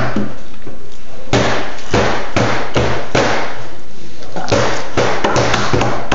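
A toddler slapping her hands on a plastic high-chair tray: a run of irregular loud smacks starting about a second in, coming faster near the end.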